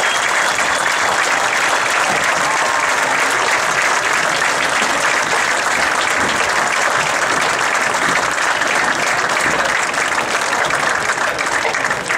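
Stadium crowd applauding steadily, easing slightly near the end.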